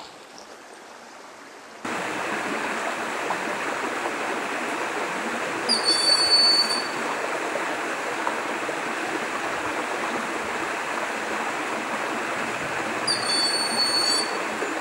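Broad-winged hawk giving two thin, high, level whistled calls, each about a second long and some seven seconds apart, over a steady rush of flowing water that starts about two seconds in.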